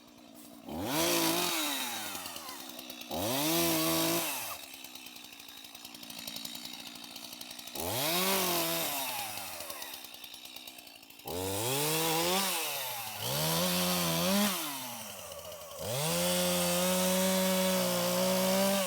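Two-stroke chainsaw revving up and dropping back about six times as it cuts through downed trees on the trail, then held at steady high revs for a longer cut near the end.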